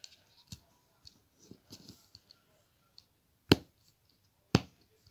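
Pop-it bubbles on a fidget spinner being pressed: two sharp pops about a second apart in the second half, after some faint handling clicks.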